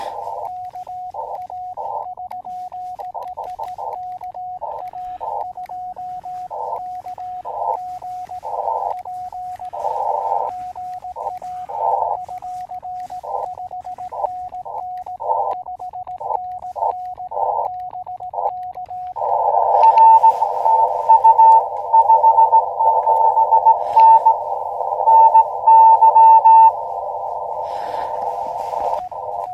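Elecraft KX2 transceiver's CW audio: a steady Morse tone in narrow-filtered band hiss, broken by short bursts. About 19 s in, the hiss gets louder and a higher keyed Morse code tone comes on and off until near the end.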